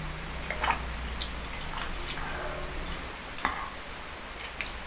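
Close-miked drinking and mouth sounds, a few swallows from a glass jar, followed by scattered small clicks and wet sounds from wooden chopsticks picking up sauce-covered chicken feet, with a sharper click near the end.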